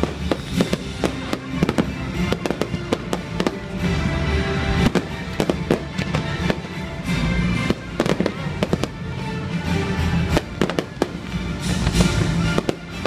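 Fireworks show: many sharp shell bursts and crackles in rapid succession, with music playing loudly underneath.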